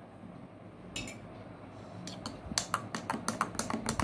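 A metal spoon stirring a milkshake in a glass mug: one scrape about a second in, then quick repeated clinks against the glass, about five or six a second, from about two seconds in.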